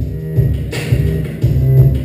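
Background music with a deep bass line and a regular beat.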